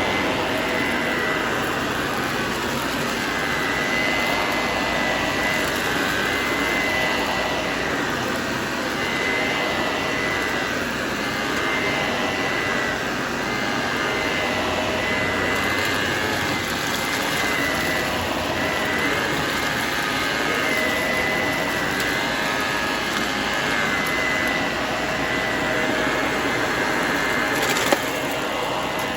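Shark Powered Lift-Away upright vacuum cleaner running steadily, its motor giving a high whine that wavers slightly as it is pushed around. One sharp click comes near the end.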